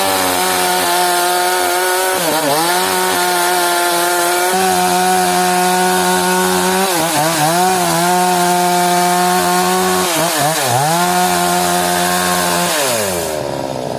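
Stihl chainsaw running at high revs, cutting wood. Its engine pitch dips briefly three times, then drops away near the end as the revs fall.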